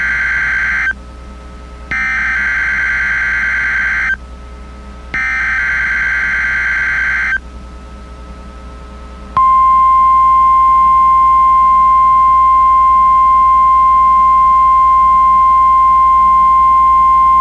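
NOAA Weather Radio SAME header: the end of one data burst and then two more, each about two seconds long and about a second apart. About two seconds after the last burst, the warning alarm tone begins, one long steady 1050 Hz tone. Sent as the weekly test of the warning alarm.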